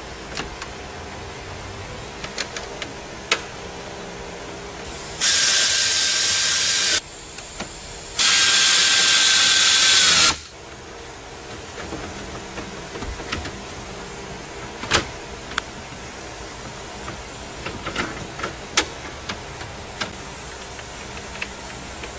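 Cordless power screwdriver driving in trim-panel screws in two runs of about two seconds each, a steady high whir whose pitch drops as the second run stops. Small plastic clicks and knocks come from the panels being fitted.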